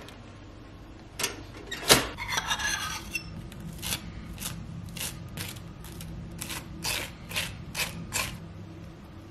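Table knife scraping peanut butter out of a ceramic bowl, then spreading it over crisp toast in a run of short scraping strokes, about two a second.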